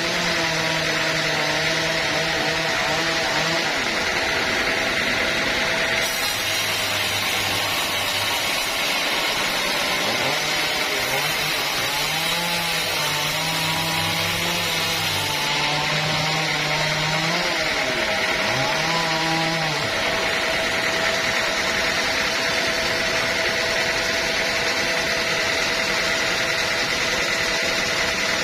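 Sawmill sawing a teak log: the machine runs steadily under load with a constant high tone over dense saw noise. The lower engine note shifts pitch a little now and then.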